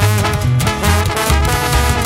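Background music with a steady beat and a moving bass line.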